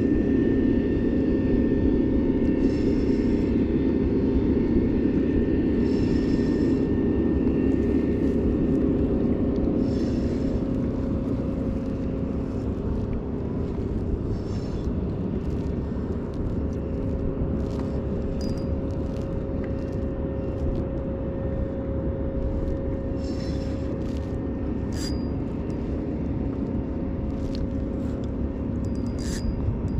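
An engine running steadily with an even low hum that holds one pitch, with a few faint clicks over it.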